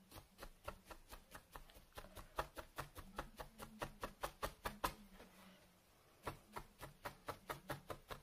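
Felting needle jabbed repeatedly into wool roving on a felting pad: a run of soft, faint pokes at about five a second, with a pause of about a second a little past halfway.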